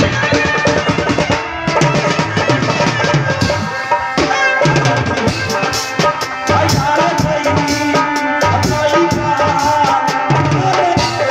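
Loud live stage music: a fast hand-drum beat under a steady held melody line.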